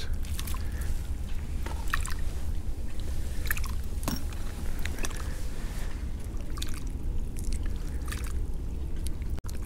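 Small clicks and wet squishing of a crappie being handled and unhooked by hand, scattered irregularly over a steady low rumble.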